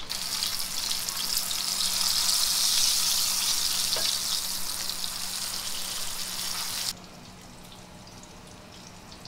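Chicken nuggets sizzling as they fry in hot oil in a pan, a loud steady hiss. The sizzling cuts off suddenly about seven seconds in.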